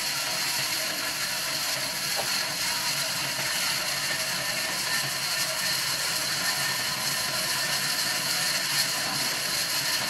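Large sawmill band saw running steadily as palm logs are fed through it: a continuous mechanical noise with a hiss riding high.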